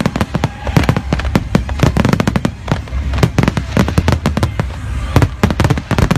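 Aerial fireworks display going off in a dense barrage: many sharp bangs and crackles in quick succession, with no let-up.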